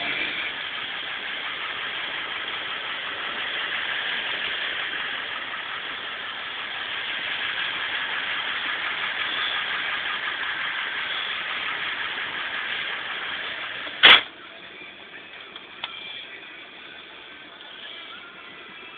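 A 2002 Ford F-350's 7.3-litre (444 cubic inch) Power Stroke turbo-diesel V8 running steadily, heard from inside the cab. About two-thirds of the way through comes one sharp, loud thump, and the engine sound is quieter after it.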